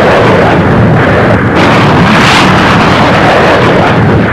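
Loud, continuous rumble of explosions, with fresh surges about one and two seconds in.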